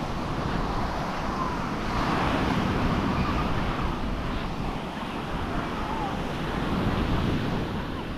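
Sea surf washing onto a sandy beach, with wind buffeting the microphone in a heavy low rumble. The wash swells and eases slowly.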